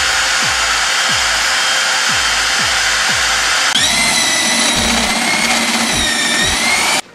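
Power drill running steadily, boring the beer-tap holes through a refrigerator door; its motor whine shifts up in pitch about halfway through and the drilling cuts off abruptly near the end. Background music with a steady beat of about two a second plays underneath.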